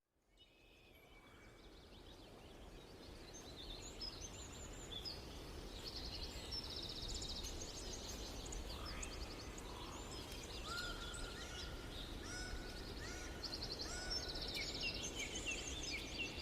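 An outdoor chorus of small songbirds chirping and trilling over a steady background hiss, fading in over the first few seconds. Several birds call at once, and one repeats short level whistles in the second half.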